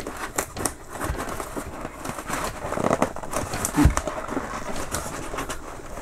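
A tight-fitting styrofoam (expanded polystyrene) box lid being pried and pulled by hand: the foam squeaks and creaks as it rubs, with scattered crackles and clicks as the edges crumble, and a short low squeak about four seconds in.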